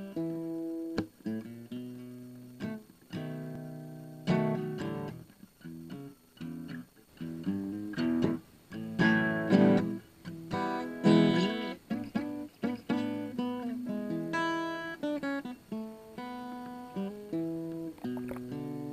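Solo acoustic guitar playing a melody of picked notes, with fuller strummed chords every few seconds.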